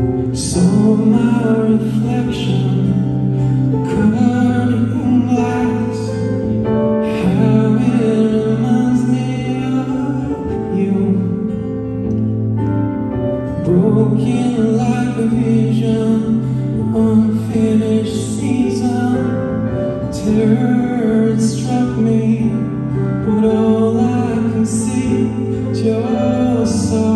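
Live song in waltz time: a man singing, accompanied by strummed acoustic guitar and a stage keyboard.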